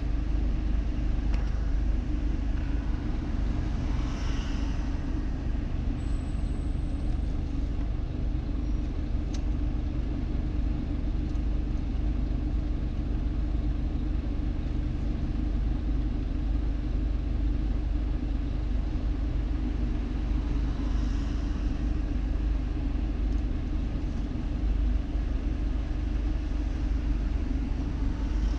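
Car idling while stopped in traffic: a steady low engine hum heard from inside the cabin, with faint sounds of other traffic passing now and then.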